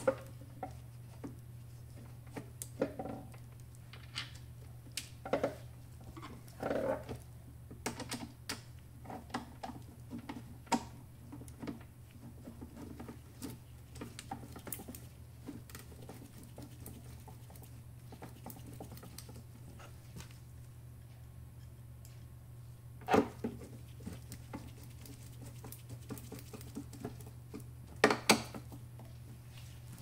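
Scattered small clicks, scrapes and taps of hand work with a screwdriver on the door-lock assembly of a Hermle Z206A centrifuge, as the broken lock is being taken out. Two louder knocks come a little over two thirds of the way in and near the end, over a steady low hum.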